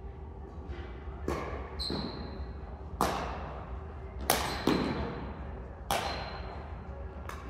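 Badminton rackets smacking a shuttlecock back and forth in a rally, a sharp hit roughly every second, each echoing through a large gym hall.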